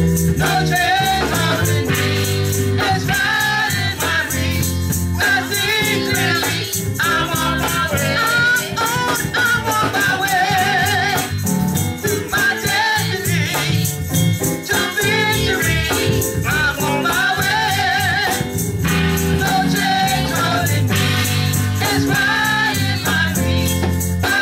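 Small gospel vocal group of a man and three women singing together into microphones, the voices wavering with vibrato over a steady low instrumental accompaniment. A rattling percussion keeps a steady beat throughout.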